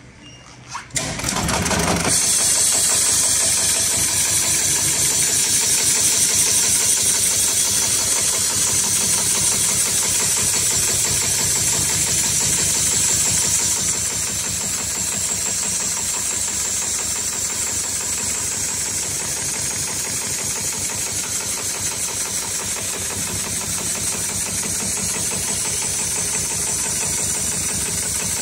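HighTex 7273CNC heavy-duty programmable pattern sewing machine stitching stiff winch-strap webbing with very thick thread. It starts about a second in and then runs in a rapid, steady rhythm of needle strokes.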